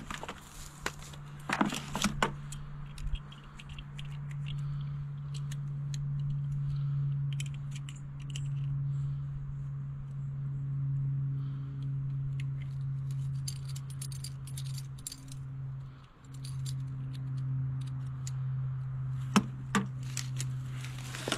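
Small metal hardware and hand tools clinking and rattling as they are handled and picked out of a plastic bucket, with sharper clacks about a second in and near the end. A steady low hum runs underneath.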